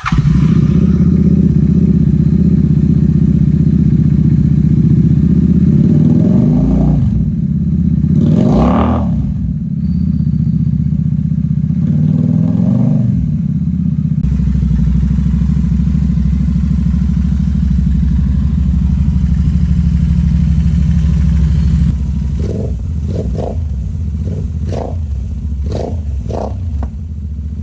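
Royal Enfield Interceptor 650's parallel-twin engine running loud through a Barrel Atom aftermarket end can. It idles steadily, is revved up and back down about eight seconds in, and revved again more lightly around twelve seconds. In the last few seconds it takes a run of short, quick throttle blips.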